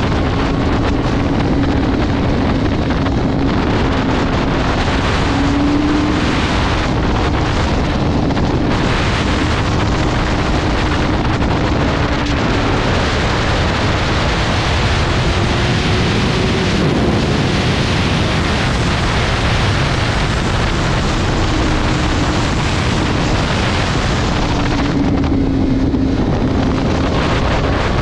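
BMW S1000R's inline-four engine at a steady freeway cruise, its note drifting slightly up and down, under heavy wind rush on the microphone.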